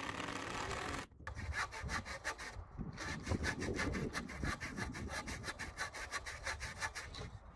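A cordless drill runs for about a second. Then a hand saw cuts back and forth through a pressure-treated pine board in quick, even strokes.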